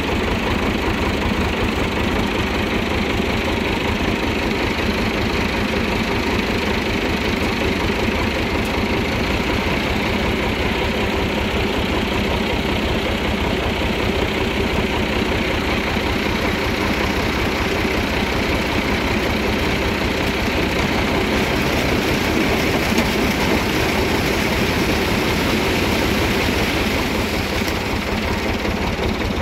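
IMT 577 DV tractor's diesel engine running steadily under working load, driving a SIP Tornado 80 tractor-mounted corn picker, whose machinery runs along with it.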